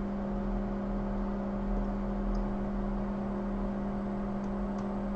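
Steady electrical hum of workbench equipment: a low, even drone with a few fainter higher tones, not changing, and a few faint ticks.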